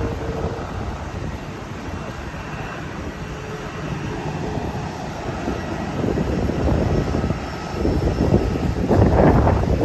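Airliner's jet engines, a steady rushing roar with a faint high whine. Wind buffets the microphone in heavier low gusts near the end.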